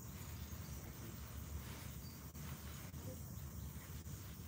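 Quiet background noise: a low steady rumble with a faint hiss, with no distinct event.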